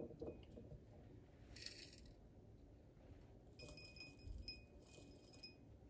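Near silence, broken by a few faint light clinks and rustles, with a faint ringing tone from about three and a half seconds to five and a half seconds in.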